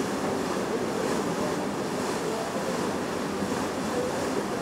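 Steady rush and splash of the bow wave off a Hurtigruten coastal ship's hull as it cuts through the water, heard close to the bow.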